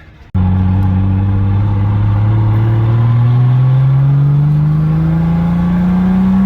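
Toyota Chaser's engine pulling hard under acceleration, its pitch climbing slowly and steadily through one long gear. It starts abruptly a moment in.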